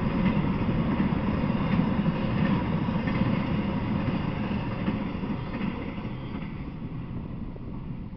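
Freight train's empty intermodal flatcars rolling past, with steel wheels rumbling and clattering on the rails. The sound fades steadily over the last few seconds as the last car goes by.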